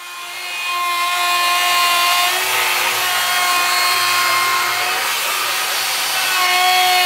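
Handheld electric grinder running at speed against carved cypress wood, a steady whine over a gritty hiss that shifts a little in pitch about two seconds in.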